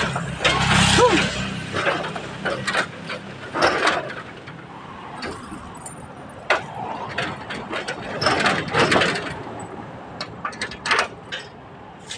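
Metal rattling and clanking as a padlock and its hasp on a metal gate are handled, with a run of sharp clicks near the end.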